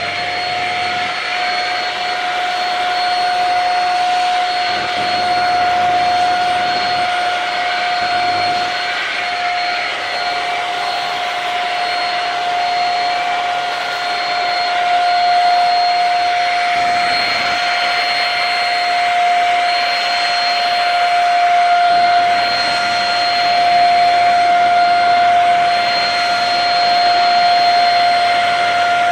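Shark Rocket corded stick vacuum running steadily in handheld mode with its dusting brush, giving a loud, even high-pitched motor whine over the rush of air.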